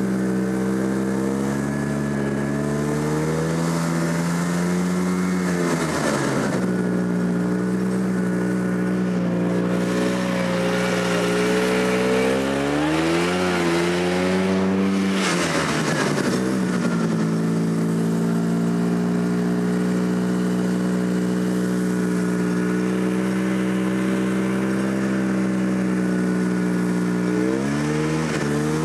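Snowmobile engine running steadily, heard from aboard the moving machine. Its note dips and climbs back up about three times as the throttle is eased and reopened.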